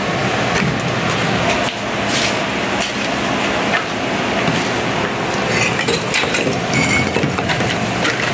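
Loose bricks clinking and knocking against each other as they are handled and dropped onto a pile of demolition rubble, over a steady background noise.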